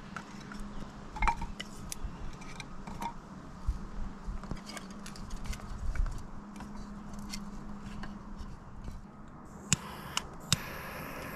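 Light clicks and taps of small objects being handled, over a steady low hum. Near the end come three sharp clicks, then a steady hiss starts.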